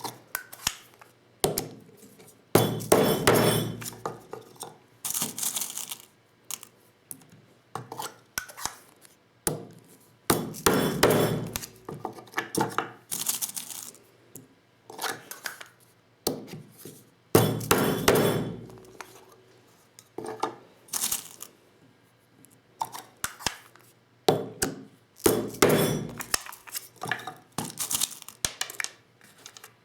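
Vintage Lee Loader hand-reloading tools for 12-gauge shotgun shells, knocking and clinking as metal parts and hulls are handled and tapped. Clusters of sharp taps come throughout, with longer bursts of rattling clatter four times.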